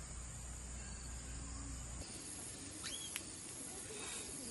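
Outdoor forest ambience: a steady, high-pitched insect drone, with a single short bird whistle about three seconds in.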